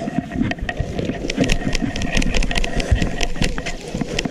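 Irregular clicks and rustles of fishing line being pulled loop by loop off a backlashed baitcasting reel spool, over a steady low rumble.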